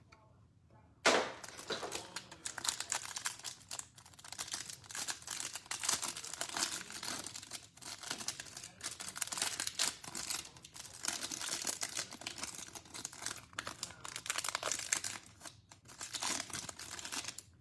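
Clear plastic wrapper on a stack of trading cards being torn open and crinkled off by hand. The crackling starts suddenly about a second in and goes on as a dense run of small crackles.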